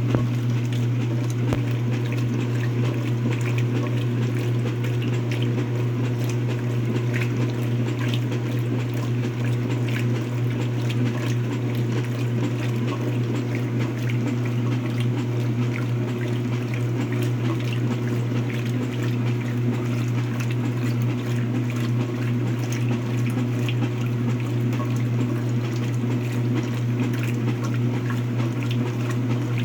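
Speed Queen washing machine running with a steady low hum and water noise. This is the strange sound that the owner wonders may be a bad transmission.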